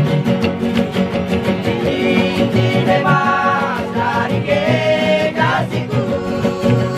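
Papuan Yospan string band: several acoustic guitars and small ukulele-type instruments strumming a steady rhythm, with men's voices singing a melody from about two seconds in until near the end.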